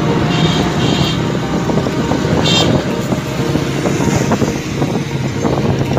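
A motorcycle's engine running steadily while it is ridden through city traffic, with the noise of other vehicles around it. Three short high-pitched chirps come within the first three seconds.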